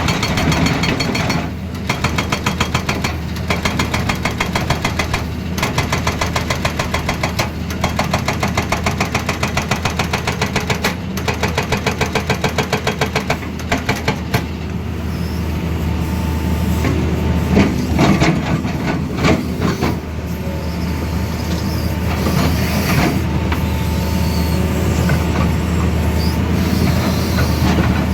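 Excavator-mounted hydraulic breaker hammering rapidly, in runs of a few seconds with short pauses, for about the first half. It then stops, and the excavator's diesel engine and hydraulics run on with some irregular knocks.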